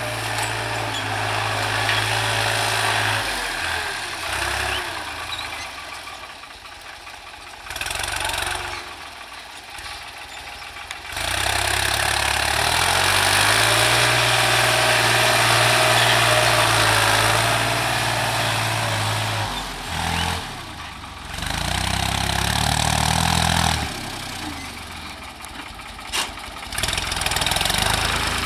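New Holland TT55 tractor's diesel engine running steadily as it pulls a cultivator through dry soil, its pitch shifting slightly. It swells in loudness as the tractor works close by in the middle and falls back as it moves away.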